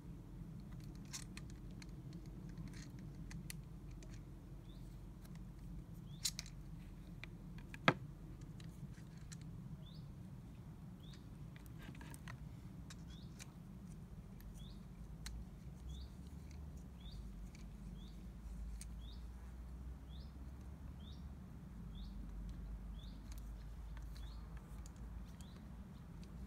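Light clicks and knocks of a small wind generator's plastic and metal parts being handled and screwed onto a tripod, with two sharper clicks about a second and a half apart in the first third. A bird chirps about once a second through most of it over a low steady hum.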